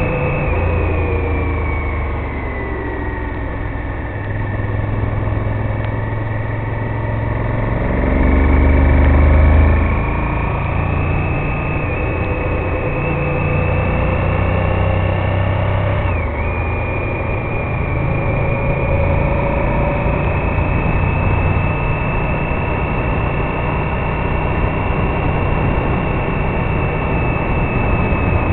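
Honda VTR1000F Firestorm's 996 cc 90-degree V-twin running under way, heard onboard. The engine note falls over the first few seconds, climbs again, dips sharply once about halfway through, then holds steady.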